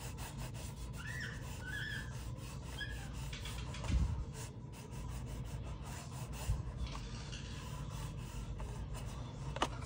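Fingertips rubbing and pressing on cardstock, burnishing the glued flaps of a small paper box: a steady, papery rubbing made of many small strokes, with a soft thump about four seconds in and a sharp click near the end.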